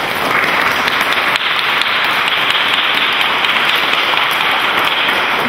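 Congregation applauding, a steady dense clapping throughout.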